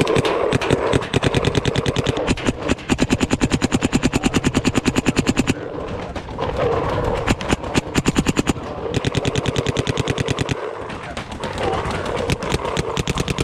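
Paintball markers firing long strings of rapid shots, about a dozen a second, in several runs broken by short pauses, with scattered single shots near the end.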